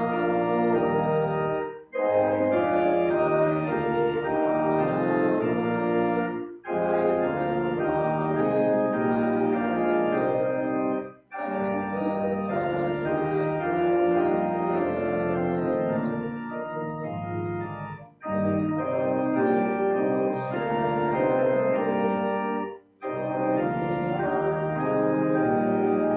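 Organ playing a slow hymn in sustained chords, lifting off briefly between phrases about every five seconds.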